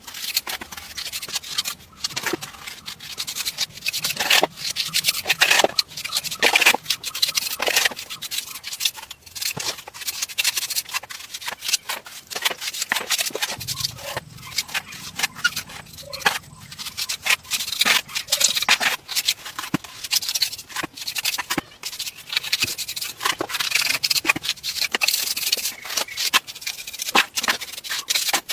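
Continuous hand rubbing and scraping of building materials, broken by many sharp clicks and cracks.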